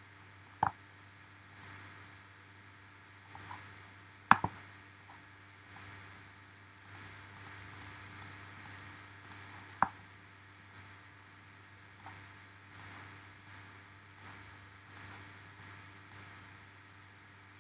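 Scattered clicks from a computer mouse and keyboard, with three louder clicks about one, four and ten seconds in, over a faint steady hum.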